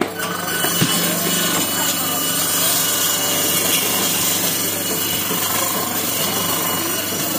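Homemade bone-cutting machine: a motor-driven saw blade rising through a slot in a wooden table, running and cutting through animal bone with a steady sawing noise over a low motor hum. It starts abruptly.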